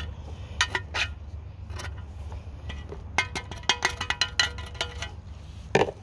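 A metal rod scraping and tapping inside a cast-aluminium diesel intake manifold, breaking up caked EGR soot and oil sludge. From about three to five seconds in, a quick run of clinks sets the manifold ringing briefly, and a sharp knock comes near the end.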